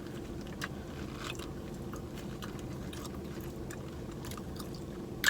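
Close-up chewing and small mouth and spoon clicks of someone eating ice cream, over a steady low hum, with one sharper click near the end.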